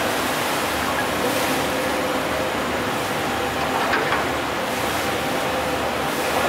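Steady rumble and rush of a river cruise ship's engines and churning water in a lock chamber, with a faint low hum of a few steady tones.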